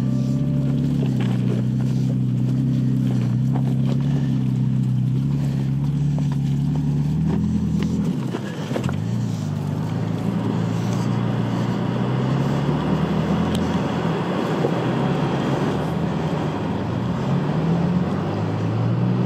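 Toyota Tacoma pickup's engine running at low speed as the truck crawls over a rocky trail, its pitch rising and falling with the throttle. A brief dip comes about eight seconds in, and the sound is noisier after that.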